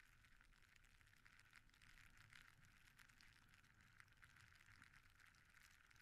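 Near silence: a snowboard sliding over snow, heard only as faint crackling and a low rumble.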